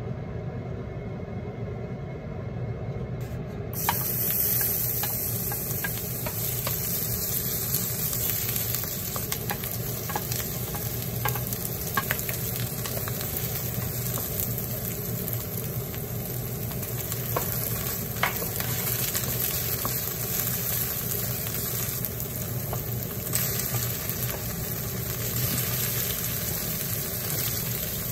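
Chopped white leek and aromatics sizzling in hot oil in a seasoned frying pan, stirred with a wooden spatula that clicks and scrapes against the pan. The sizzle starts abruptly about four seconds in, after a low steady hum.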